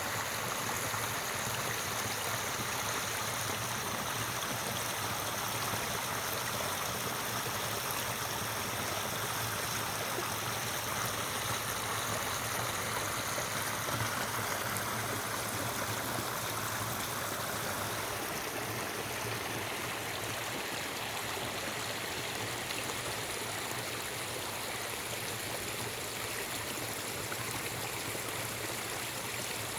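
Small forest stream babbling steadily over its bed.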